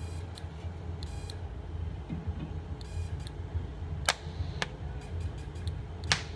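TIG welder with a pulse box, humming steadily, with a few sharp snaps in the second half as the low-current arc tries to start on stainless steel without fusing into it.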